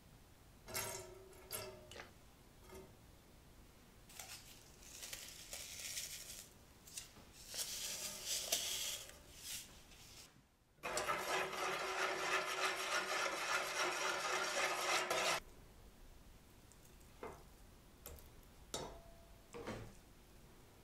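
Cooking sounds at a stainless steel pot: seasoning granules shaken from a small box into the oil, rattling and hissing for several seconds. Midway a loud, steady hiss lasts about four seconds, starting and stopping abruptly. Near the end a few light knocks come as diced meat goes into the pot.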